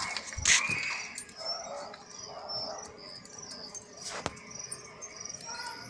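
A dog making a few short sounds while held by its collar: a brief high yelp about half a second in, then a couple of softer, lower sounds.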